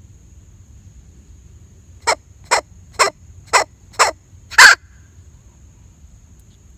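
Primos hand-held bellows squirrel call, squeezed to imitate squirrel barks and call in squirrels: six short, sharp barks about half a second apart, the last one the loudest and a little longer.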